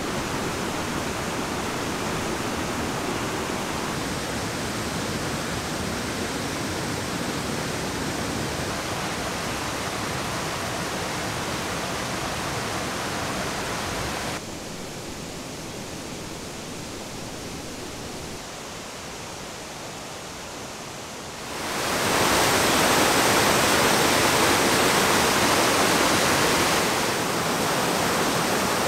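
Steady rush of a mountain stream running over rocky rapids. It drops a little about 14 seconds in, then grows much louder and brighter about 22 seconds in, up close to the white water.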